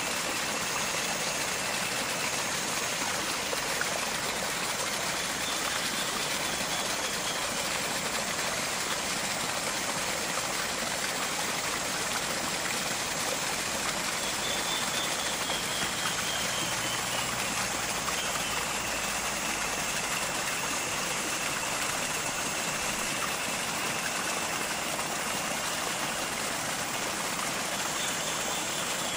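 Steady rush of running water, like a stream, unchanging throughout, with faint thin high-pitched tones that come and go above it.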